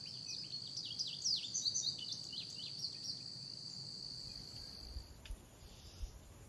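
A steady, high-pitched insect trill with a bird giving a quick series of short, downward-sweeping chirps over it; both stop about five seconds in. Quieter outdoor background follows, with two soft low thumps near the end.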